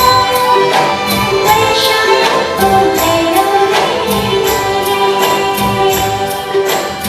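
Live Nepali film-song band playing a folk-style song: melody lines over a steady hand-drum beat, with a female voice singing.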